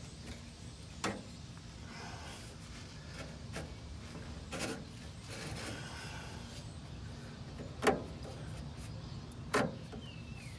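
Handling noises from work on the car's exhaust pipe and flex tube: light rubbing with a few sharp knocks, the loudest about eight seconds in.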